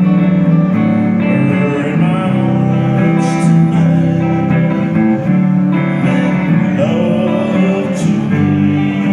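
Live music from two electric guitars playing an instrumental passage of a song over sustained low notes.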